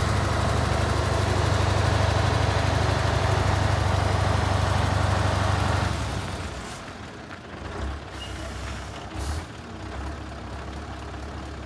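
Scania 143H truck's V8 diesel engine idling steadily, loud and close at first. About six seconds in it drops to a quieter, more distant idle, with two short louder noises a second or so apart.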